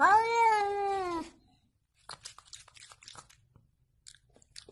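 A cat meowing once: a single drawn-out meow of just over a second that drops in pitch at the end, followed by a few faint clicks.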